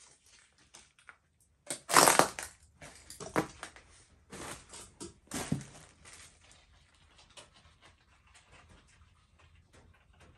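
Crunching and rustling of debris, in a few bursts: the loudest about two seconds in, more shortly after, then only faint clicks.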